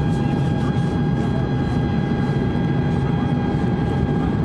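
Airbus A330-200 cabin noise heard from a window seat in flight during the descent: a steady low rush of airflow and engines with a steady high whine over it.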